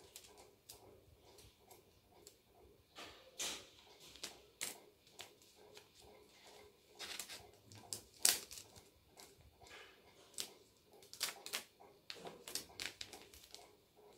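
Paper rustling and crinkling as sheets and cut-outs are handled, with scattered light clicks and taps at irregular intervals.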